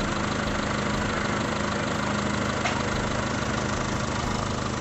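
Daihatsu Taruna EFI engine idling steadily with an even hum, while its ignition timing is set by turning the cam sensor in search of the highest idle speed.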